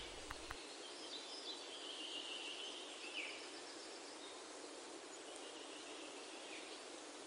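Faint steady hiss of background noise, with a few faint high chirping glides and a couple of soft ticks.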